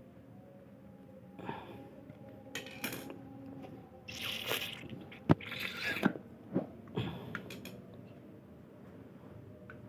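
Hand work on a washing machine's water inlet valve during reassembly: a string of small clicks, knocks and scrapes of plastic parts and screws, the sharpest click about five seconds in, with quieter handling before and after.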